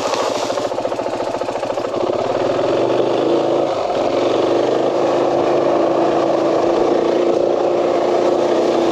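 KTM 500 dual-sport's single-cylinder four-stroke engine idling, then pulling away about two seconds in and running at a steady speed.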